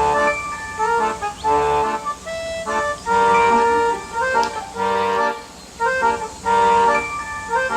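Instrumental background music: a reedy, organ-like melody of held notes in a steady rhythm.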